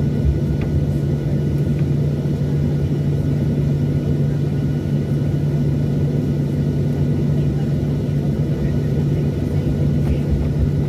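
Cabin sound of a Boeing 737-800 over the wing: its CFM56 jet engines running with a steady low hum and rumble.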